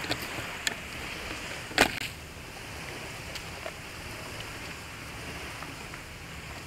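A few handling knocks and one sharp click in the first two seconds as the camera is moved and set down, then a steady hiss of seaside ambience.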